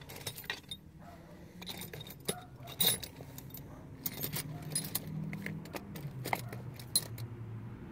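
Small metal machinist's tools clinking and clicking as they are handled, with a dial indicator lifted out of its plastic case. Sharp light clicks come throughout, the loudest about three seconds in and again near the end, over a low hum.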